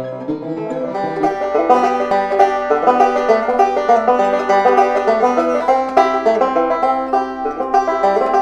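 Five-string banjo picked fast, a steady stream of quick plucked notes that grows louder about a second in.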